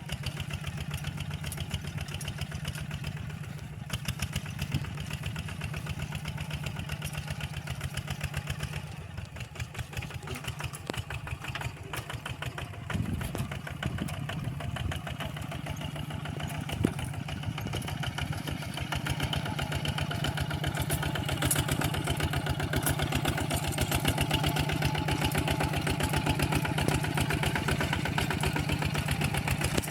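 Engine of a two-wheel walking tractor running steadily with a fast, even firing beat. It grows louder about two-thirds of the way through.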